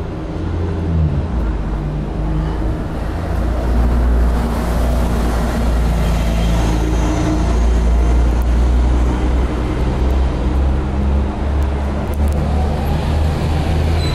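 City bus engine running as the bus passes close alongside, a loud steady low rumble with a faint high whine in the middle.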